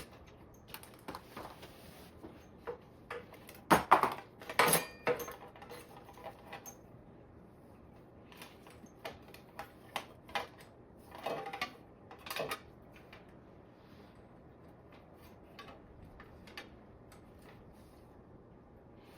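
Scattered clicks and light metallic clinks from hands handling e-bike wiring and small parts, louder about 4 to 5 seconds in and again around 11 to 12 seconds.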